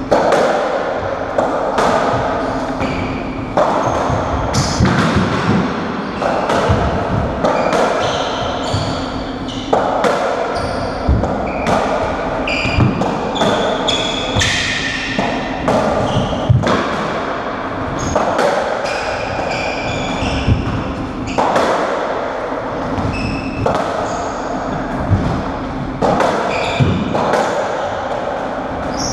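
Racketball rally on a squash court: the rubber ball struck by strung rackets and slamming off the walls and floor in a quick, irregular run of sharp hits, each echoing off the court's walls.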